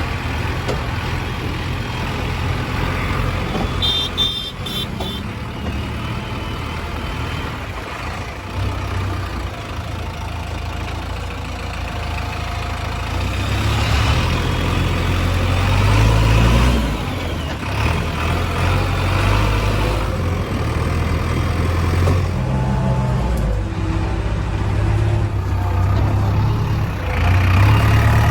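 Heavy diesel machinery engines running, their speed rising and falling as they work under load. A short run of high-pitched beeps comes about four seconds in.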